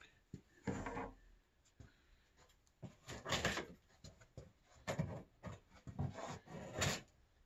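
Large cardboard shipping box being handled: short, irregular scrapes and rustles of the cardboard, in a few clusters with quiet gaps between.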